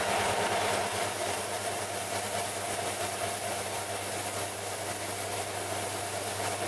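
Combination belt-and-disc sander running steadily, with the end of a plywood block held against its sanding belt.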